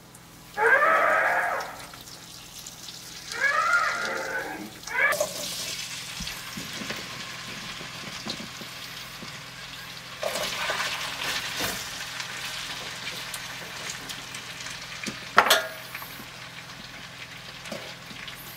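Diced red potatoes sizzling as they go into a hot cast-iron skillet on a gas burner, the sizzle growing louder about ten seconds in as more pieces are added. Two short pitched calls are heard in the first few seconds, and there is a sharp knock about fifteen seconds in.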